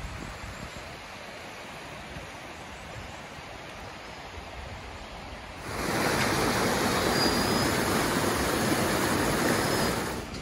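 Pistyll Rhaeadr waterfall rushing, a steady noise of falling water that becomes suddenly much louder a little past halfway.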